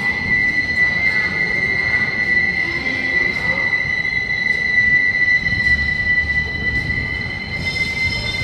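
CAF Urbos 3 tram pulling away over curved street track, its wheels squealing in one steady high-pitched note over a low rumble. A second, higher squeal joins near the end.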